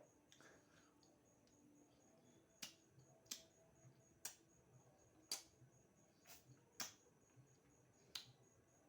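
Faint eating sounds: chewing, broken by sharp wet mouth clicks about every second.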